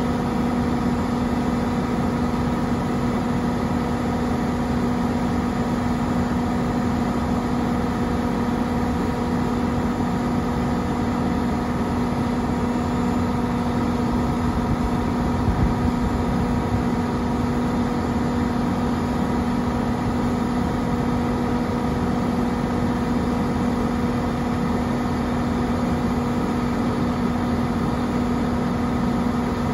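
Steady, unbroken drone of refrigeration machinery running: Thermo King refrigerated trailer units and rooftop cooling equipment. It sounds like an idling engine, with a constant low hum and a few fainter higher tones over a dense noise.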